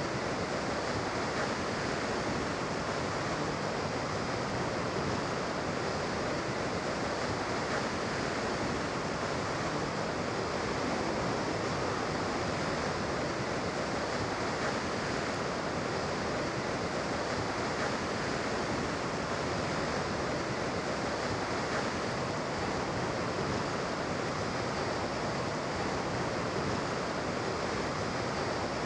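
Steady rushing of water, an even noise that holds the same level throughout.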